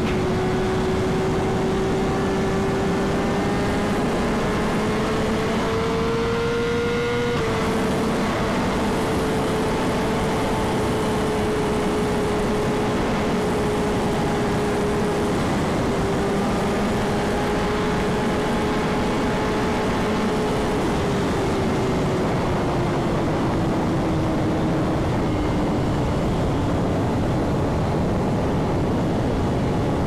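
Straight-piped BMW S1000RR inline-four running at high highway speed under heavy wind noise. The engine note rises for the first several seconds, changes abruptly about seven seconds in, holds steady, then falls from about twenty seconds in as the rider rolls off the throttle.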